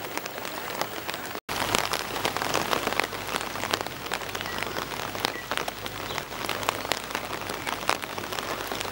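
Steady patter of rain, with many small drips and a brief cut-out about a second and a half in.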